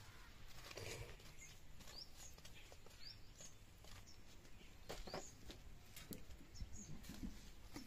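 Faint scraping and light knocks of a wooden stick raking through ash and embers, with short rising bird chirps now and then.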